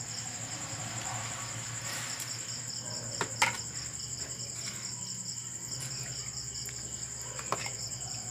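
Crickets trilling: a steady high trill with a faster pulsing chirp alongside it, and two sharp clicks, one about three seconds in and one about seven and a half seconds in.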